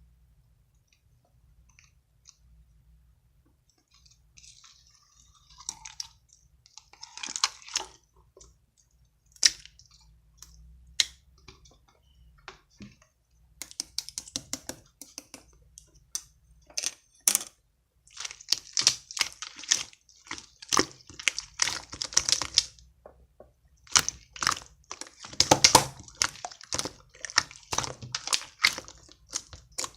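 Clear slime full of trapped air bubbles being squeezed and stretched by hand, giving crackly clicks and small pops. Faint at first, then scattered clicks, becoming a dense rapid crackle in the second half.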